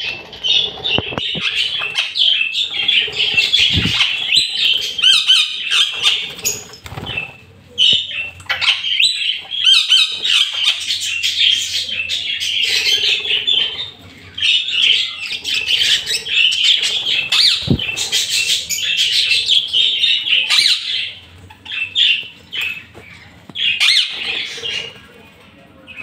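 A flock of budgerigars in an aviary, chattering and squawking continuously with short, busy chirps, with bursts of wing flapping as birds take off and land. The chatter thins out into separate calls over the last few seconds.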